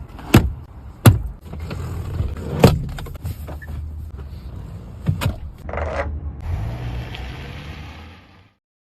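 Chery Tiggo 8 Pro's electric fittings at work: four sharp clicks and knocks over a low steady hum, then about six seconds in a short whine and a steady motor whirr that stops abruptly.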